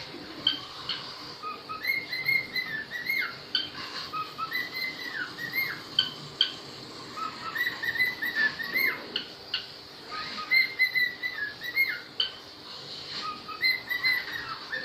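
Small pet parrots calling and chattering: repeated short, high chirps and whistled notes, many with quick falling strokes, coming in busy clusters several times a second.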